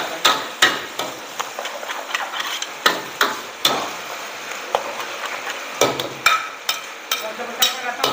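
Metal ladle and spatula clanking and scraping against a wok while stir-frying noodles. The clanks are repeated and irregular, two or three a second, over the sizzle of frying.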